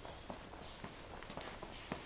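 Footsteps on a hard floor, about two steps a second.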